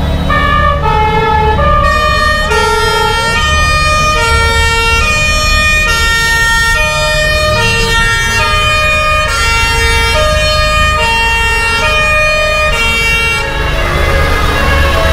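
Two-tone emergency-vehicle sirens sounding over the low rumble of vehicle engines. The note steps back and forth between a lower and a higher pitch, with more than one siren overlapping. The sirens stop about a second and a half before the end, leaving only the engine and traffic noise.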